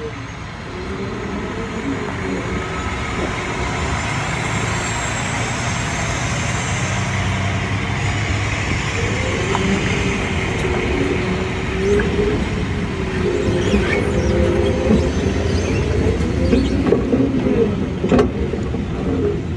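Forklift engine running as it drives over a rough gravel yard, its pitch rising and falling with the throttle, with rattling and a few sharp metal clanks from the forks and mast.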